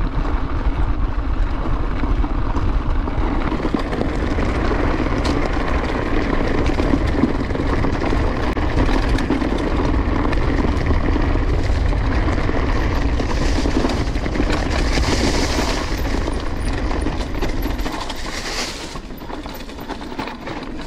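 Downhill mountain bike running fast over a rough trail: a steady rush of tyre and wind noise, with the bike's chain clattering, a rattle the rider has not yet cured. The noise eases off a few seconds before the end as the bike slows.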